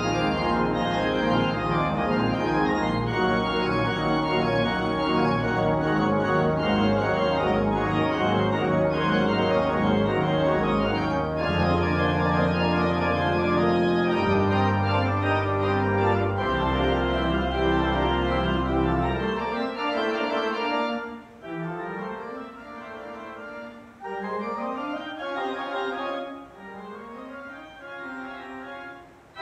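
Organ music: full sustained chords over deep pedal notes, then, about twenty seconds in, the bass drops away and the playing turns lighter and quieter with repeated short rising runs.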